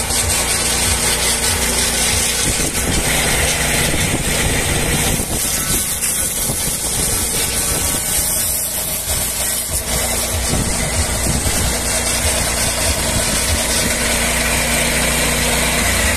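Carbureted petrol engine of a swing-blade portable sawmill running steadily while its circular blade skims the top face of a log. The low engine hum thins out for a few seconds partway through, then returns.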